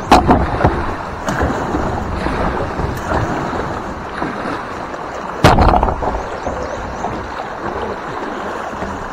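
Fast-flowing shallow river water rushing around a kayak stuck among rocks, with a few hard knocks against the boat, the loudest about five and a half seconds in.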